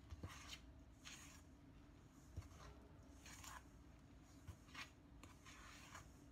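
Faint, dry scraping and rustling strokes, about one a second, as flour and dough are stirred in a stainless steel mixing bowl, with a few soft knocks against the bowl.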